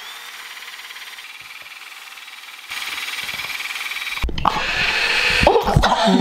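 Power drill with a fork clamped in its chuck, whirring steadily as it beats brownie batter in a stainless steel bowl. It steps up in level about two-thirds of the way in and gets louder again near the end.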